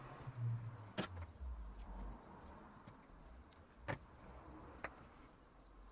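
A few faint, sharp clicks and taps from a small printed circuit board and soldering tools being handled on a wooden board, over a faint low hum.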